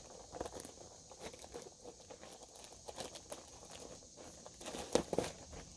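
Clear plastic packaging bag crinkling and rustling as it is opened and handled, in short irregular crackles, the loudest about five seconds in.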